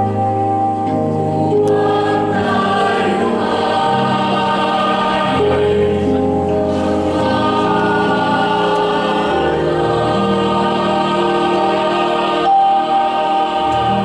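Mixed choir singing slow, held chords that change every second or two, swelling a little near the end.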